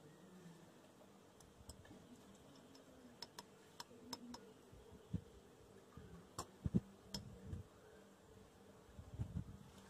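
Faint, irregular clicks and light knocks of small ceramic jars and miniature steel utensils being handled, mostly in the first three quarters.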